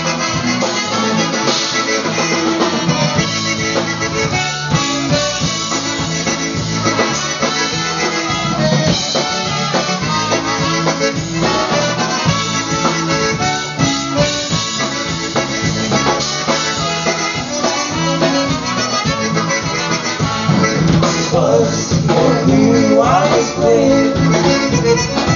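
Live polka band playing a dance number, with two trumpets out front over drum kit and bass, at a steady beat.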